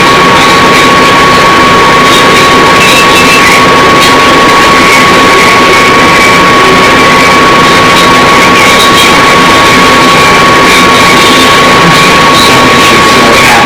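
Funai VCR/DVD combo player's tape mechanism running with a steady high whine over a loud, constant mechanical noise.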